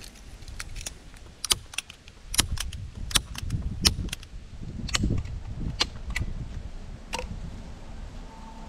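Hand staple gun firing staples through plastic film into a wooden frame: a run of sharp snaps, irregularly spaced, about fifteen in all, with low wind rumble on the microphone beneath.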